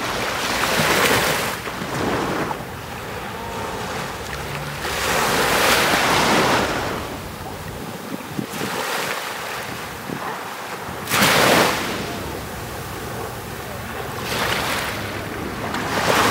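Small sea waves breaking and washing up a sandy shore, the hiss of the surf swelling about four times, with wind rumbling on the microphone.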